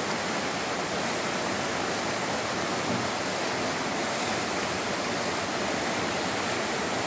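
Whitewater rapids of the Soča river rushing over rocks: a steady, even rush of water.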